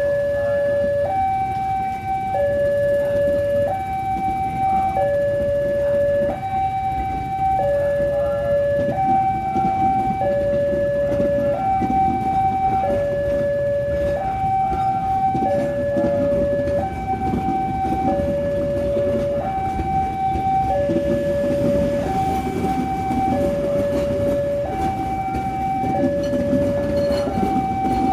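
Railway level-crossing warning alarm sounding its electronic two-tone signal, alternating high and low tones of about a second each, over a low rumble that grows louder near the end.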